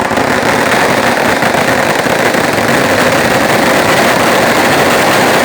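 Large bonfire burning with a loud, steady roar of flames that begins suddenly as the fire takes hold.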